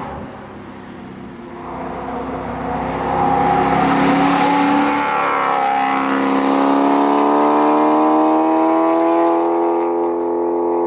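BMW E92 M3's 4.0-litre V8 accelerating hard through a full titanium exhaust, its pitch climbing, then dropping briefly at an upshift about five seconds in and climbing steadily again.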